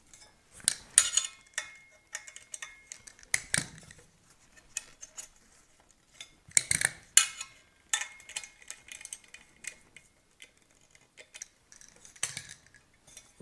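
Irregular metallic clicks and clinks of an aluminum rifle chassis and its buttstock being handled and adjusted, coming in scattered clusters.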